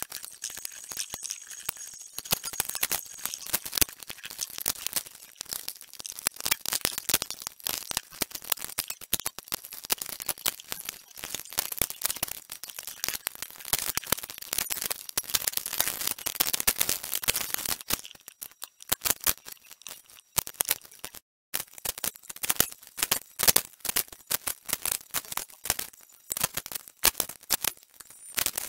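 Dense, irregular clicking and rattling from hand work on a television circuit board while its components are being desoldered, broken once by a moment of silence about two-thirds of the way through.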